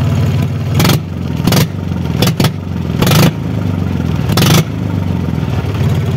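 Mahindra 275 tractor's three-cylinder diesel engine running with its silencer removed, idling on the open exhaust, with five short, sharp revs from quick blips of the throttle. Very loud.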